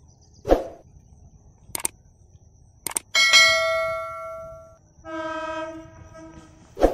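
Subscribe-button animation sound effect: a thump, a couple of sharp mouse-click sounds, then a bright bell-like ding that fades out over about a second and a half. It is followed by a shorter, steady lower tone and another thump near the end.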